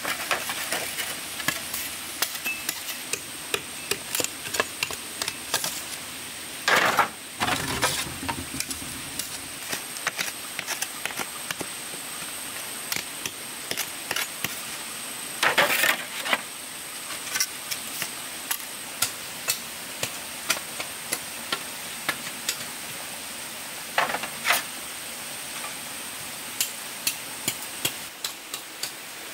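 Hand-tool work on wood: irregular light taps and knocks, with a few heavier strikes about seven, eight and fifteen seconds in.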